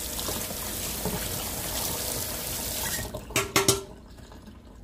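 Kitchen tap running into a sink while something is rinsed off, shutting off about three seconds in, followed by a few sharp clacks.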